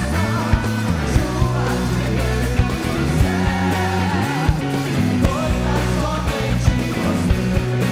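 Live band playing a worship song with electric guitar, bass and drums keeping a steady beat, with sung lines over it.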